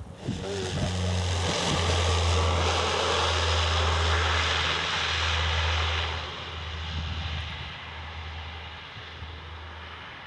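Saab 340's twin turboprop engines running, a steady low propeller drone under a broad turbine hiss. It grows loud within the first second or two and drops to a quieter, continuing drone about six seconds in.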